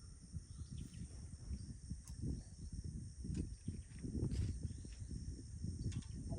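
Outdoor shore ambience: an uneven low rumble that comes and goes, with a steady high-pitched insect drone above it and a few faint clicks.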